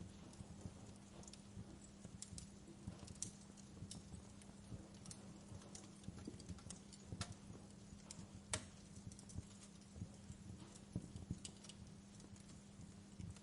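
Wood fire in a fireplace crackling: faint, irregular pops and snaps, a few of them louder, over a steady low hum.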